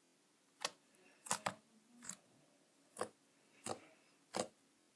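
Slime being pressed and poked by hand, giving sharp clicking pops about every second, seven in all.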